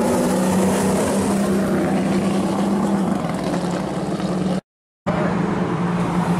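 Hot rod engines running with a steady drone as the cars drive past. The sound cuts out for a moment about four and a half seconds in, then a steady engine drone carries on.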